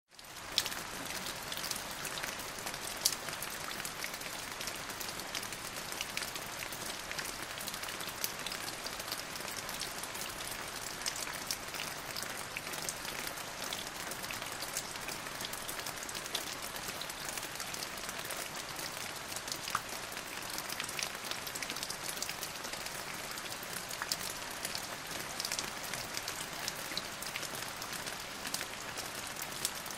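Steady rain falling, an even hiss dotted with many small drop ticks, fading in at the very start.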